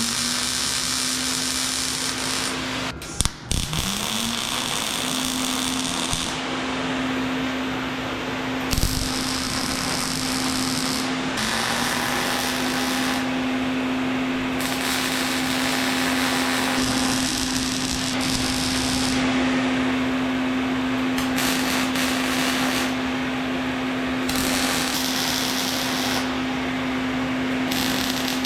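Angle grinder grinding down welds on steel shelf pieces: the motor spins up to a steady high whine under a harsh grinding hiss that swells and eases as the disc bites. It stops briefly about three seconds in and spins up again.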